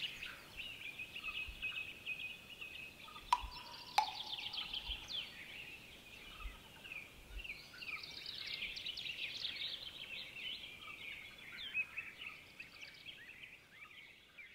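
Many small songbirds singing and chirping at once in a spring woodland chorus, with dense overlapping trills. Two sharp clicks break through about three and four seconds in.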